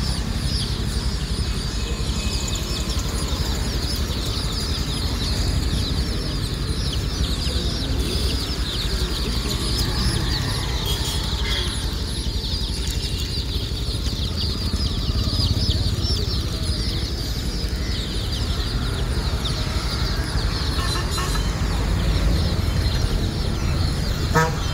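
A large flock of young chicks peeping constantly, many overlapping high chirps at once, over a steady low rumble.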